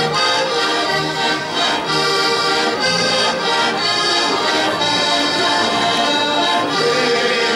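Several heligónky, Slovak diatonic button accordions, playing a folk tune together in full chords, with bass notes coming about once a second.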